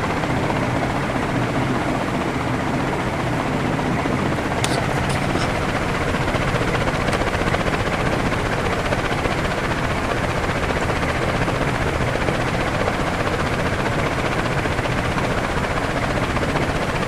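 56-inch agricultural ceiling fan running at full speed: a steady rush of air from the blades with motor hum, unchanging in level. A few faint clicks sound about five seconds in.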